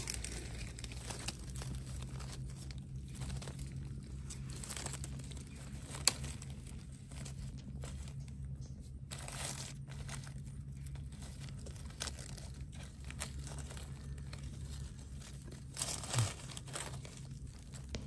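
Dry leaf litter rustling and crackling as a hand and a knife blade work through it to cut out small mushrooms, with one sharp click about six seconds in. A low steady hum runs underneath.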